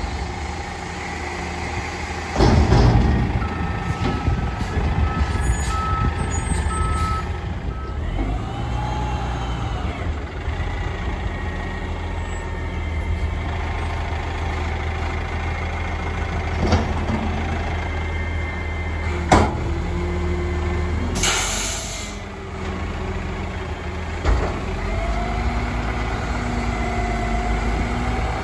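Mack MRU front-loader garbage truck with a Heil Odyssey body running, its engine rising and falling in pitch twice. A few seconds in, its reversing alarm beeps for about four seconds. About three-quarters of the way through, an air brake gives a short hiss.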